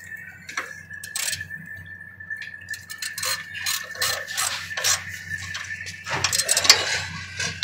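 Socket ratchet clicking as a nut is cranked down on a battery hold-down bolt, with light metal-on-metal clinks from the steel bar. The clicks come in short irregular runs that grow thicker near the end, over a thin steady high tone.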